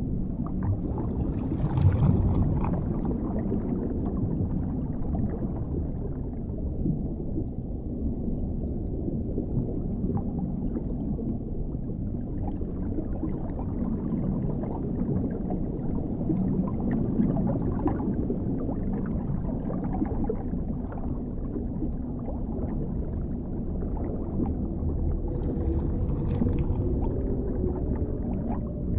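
Dark underwater ambience: a deep, steady low rumble of water with muffled gurgling and bubbling. It swells a little about two seconds in and again near the end.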